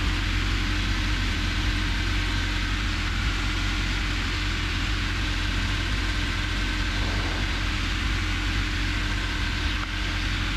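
Robin DR400 light aircraft's piston engine and propeller running steadily in flight, heard from inside the cockpit as a constant drone mixed with airflow noise.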